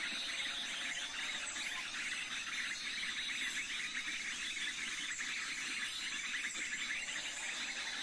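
A dense, steady chorus of high-pitched chirping and buzzing that does not let up.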